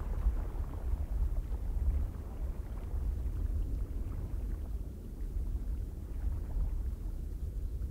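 Cold wind blowing in uneven gusts, mostly a deep rumble of wind buffeting the microphone, with a fainter hiss above it.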